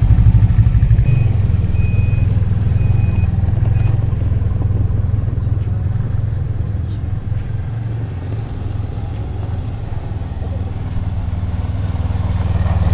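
Snowmobile engines running steadily, a low engine hum that eases off in the middle and swells again near the end as a Lynx snowmobile pulls up close. A few short, high beeps sound about one to four seconds in.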